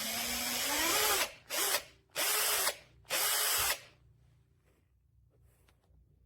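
Black+Decker 20V cordless power tool run under the trigger four times. First comes a run of about a second and a half, its motor whine rising in pitch as it spins up. Then come three shorter bursts.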